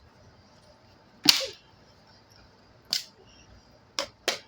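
Sharp cracks and knocks as a ceiling fan's parts are struck and broken: four short hits, the first the loudest, the last two close together near the end.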